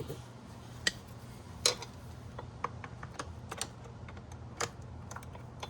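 Scattered, irregular light clicks and taps of hand tools and small metal parts being handled while reattaching a motorcycle's rear brake line fitting, over a steady low hum.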